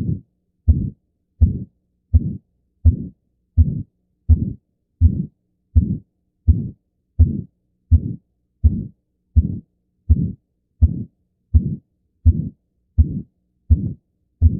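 Heart sounds heard through a stethoscope, beating steadily at about 83 beats a minute, each beat a short low thud.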